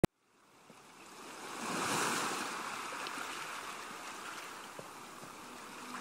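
Sea waves washing in a steady rushing noise that fades in, swells about two seconds in, then eases. A brief click at the very start.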